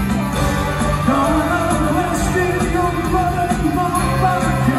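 Rock band playing live in an arena, with singing over the full band.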